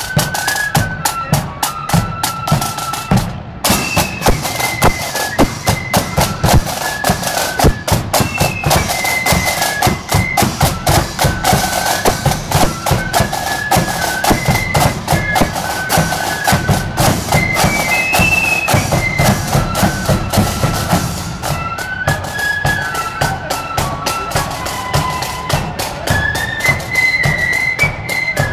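Marching flute band playing a tune: massed flutes carry a high melody over steady bass drum and snare drum beats.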